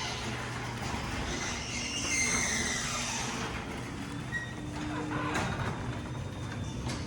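LiftMaster 8550W belt-drive garage door opener running a large sectional door, with a steady motor hum. High squeaks from the moving door come in about a second in, and there are sharp clicks near the end.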